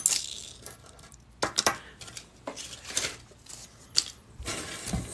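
Small steel pieces (loose chainmail rings, paperclips and nails) clinking and sliding on a hard tabletop as a hand rummages through them. There are about half a dozen separate sharp clicks, then a longer shuffling rustle near the end.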